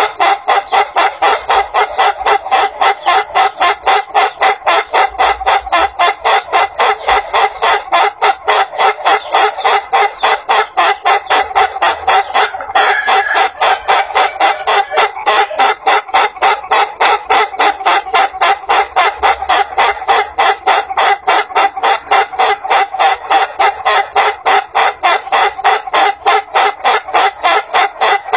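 Ayam Ketawa 'laughing rooster' crowing its long staccato crow: a rapid, steady string of short notes that sounds like laughter and runs on without a pause for breath, with one brief break about halfway through.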